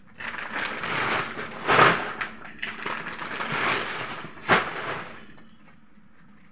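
Paper and woven plastic sacks being grabbed, lifted and shifted, a crackling rustle that swells loudest nearly two seconds in, with a sharp knock about four and a half seconds in, then fading.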